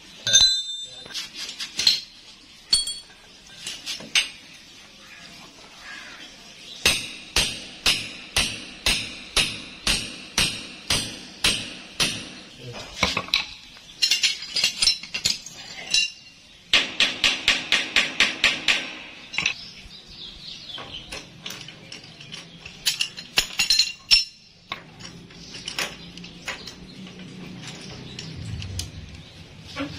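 Hammer blows chipping cement plaster away from water pipes set in a wall: runs of sharp clinking strikes about twice a second, quickening to four or five a second around the middle, then quieter near the end.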